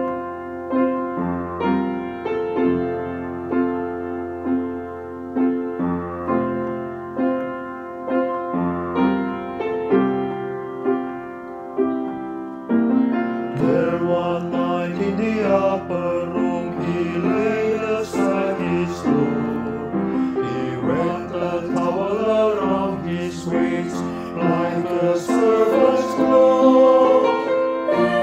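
Church choir anthem with piano accompaniment. A solo piano introduction of evenly paced notes, then the choir's men's voices enter about halfway through, singing the first verse over the piano.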